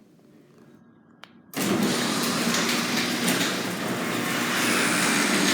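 Genie ChainGlide chain-drive garage door opener running, a steady noisy motor hum that starts suddenly about a second and a half in, after a faint click.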